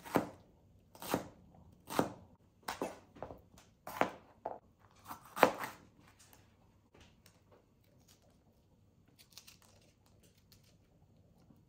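Chef's knife chopping green bell pepper on a plastic cutting board, about one sharp chop a second for the first six seconds. After that, faint crackling and tearing as a jalapeño is pulled apart by hand.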